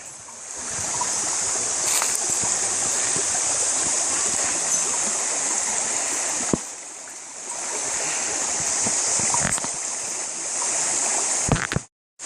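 Steady rush of stream water, with a few short knocks and splashes. It dips briefly past the middle and cuts off abruptly near the end.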